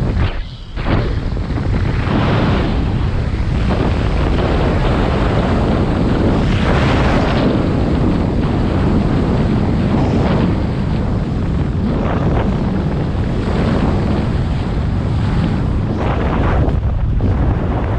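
Rushing airflow buffeting a camera microphone in fast speedflying flight: loud, steady wind noise with gusty surges, dropping out briefly about half a second in.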